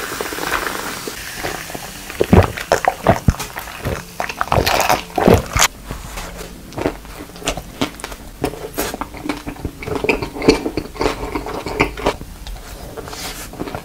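Cola poured fizzing over ice into a glass, then loud gulping as it is drunk, followed by close-miked biting and wet chewing of hot dogs.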